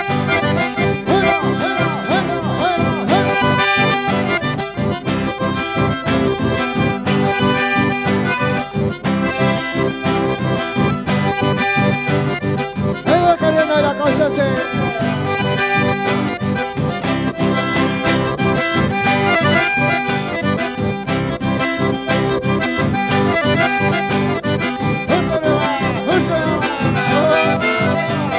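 Accordion-led band playing dance music with a steady beat, the accordion's sustained chords and melody on top.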